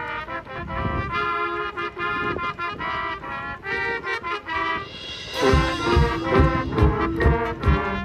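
Marching band brass playing held chords. About five seconds in the percussion enters with a crash and steady low drum hits, and the full band plays louder.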